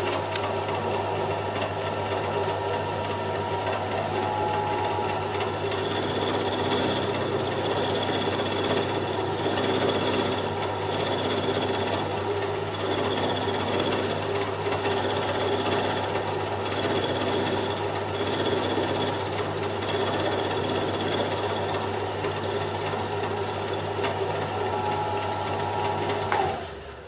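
Home-built Gingery milling machine running, its end mill cutting a curved slot in a cast aluminium part, with a steady motor hum and a faint pulsing about once a second through the middle. The machine is switched off near the end and winds down.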